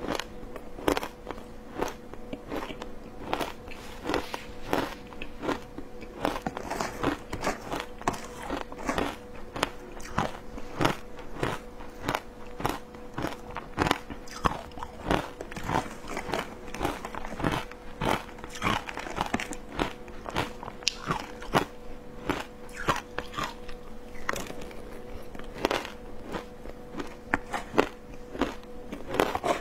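Shaved ice dusted with matcha powder being bitten and chewed close to a clip-on microphone: a rapid, irregular run of crisp crunches, a few each second, over a faint steady hum.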